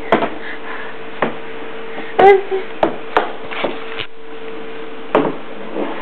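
A toy lightsaber hums steadily at one pitch while its plastic blade knocks and taps against things, about half a dozen sharp hits. A toddler gives a short high squeal about two seconds in.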